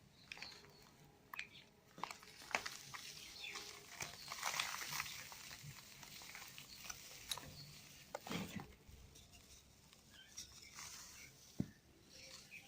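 Dry cement balls and cubes crumbling, with irregular fine crackles, gritty crunches and sharp clicks, thicker around a third of the way in and again about two thirds in.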